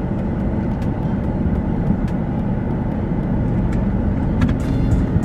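Steady road and engine rumble heard inside a moving car's cabin.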